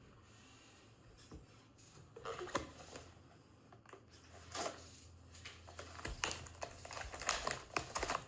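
Small cardboard blind box and its packaging being opened and handled: scattered clicks, tearing and crinkling, sparse at first and busier in the second half.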